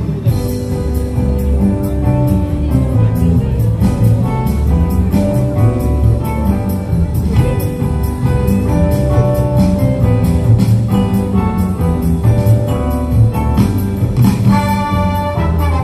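Christmas medley music played over an outdoor public sound system, with strong bass and many instruments; brighter brass-like notes come in near the end.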